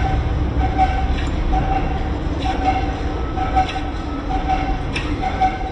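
Workshop machinery running steadily, with a low rumble and a tone that pulses on and off about once a second, and a few light metallic ticks.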